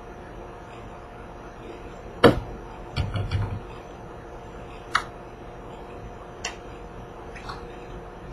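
Small plastic makeup items and a hand mirror being handled and set down on a table: a few sharp clicks and knocks, the loudest about two seconds in, then a short clatter and some lighter single clicks, over a faint steady hum.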